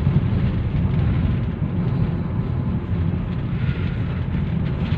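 Steady low rumble of road and engine noise inside the cabin of a Mitsubishi Xpander driving at about 50 km/h.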